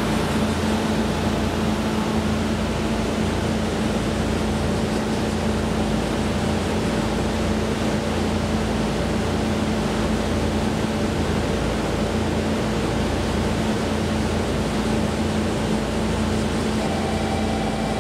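Steady mechanical hum and noise of a railway station platform, with a constant low tone that does not change; a faint higher tone joins near the end.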